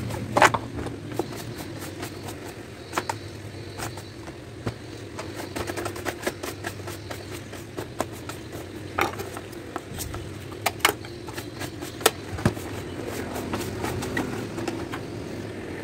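Scattered clicks and knocks of hands handling a hard-shell suitcase and its rim, over a steady low background hum.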